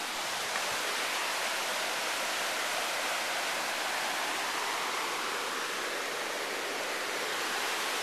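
River rushing over rapids: a steady, unbroken rush of white water.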